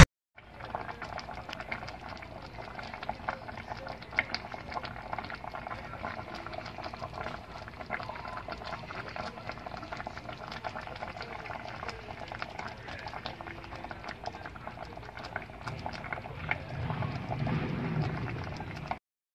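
A pot of potatoes in a thick ground-perilla-seed broth simmering, bubbling and popping with many small pops. It grows a little louder near the end.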